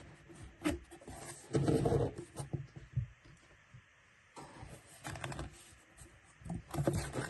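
Cardboard and plastic packaging being handled and unwrapped: scraping, rustling and small knocks in several bursts, with short pauses between them.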